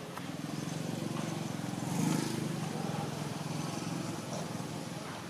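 A motor vehicle's engine hum, growing louder to a peak about two seconds in and then easing off, as if passing by.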